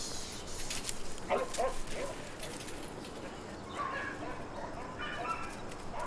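Border collie barking: three short, high yips about a second in, with more calls later on.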